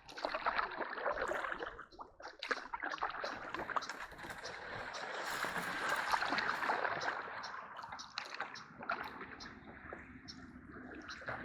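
Canoe being paddled and pushed through shallow, grassy swamp water: irregular splashing and sloshing with scraping, rustling and light knocks.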